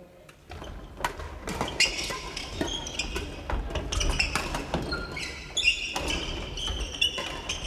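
Badminton play on a wooden hall floor: sharp racket hits on shuttlecocks from several courts, quick footfalls and short high sneaker squeaks, echoing in the large hall.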